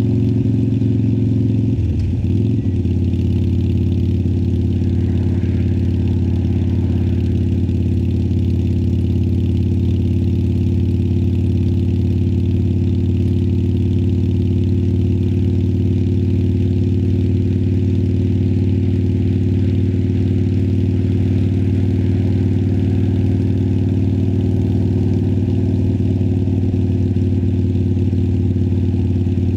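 Harley-Davidson Sportster Iron 1200's air-cooled 1200 cc Evolution V-twin running through Vance & Hines Twin Slash slip-on mufflers, holding a steady engine speed. Its note shifts briefly about two seconds in, then stays even.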